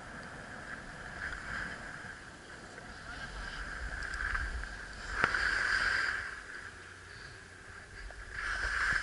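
Skis sliding and scraping over packed snow on a downhill run, with wind rumbling on the microphone; the swish swells louder about four, six and nine seconds in, with a sharp click around five seconds in.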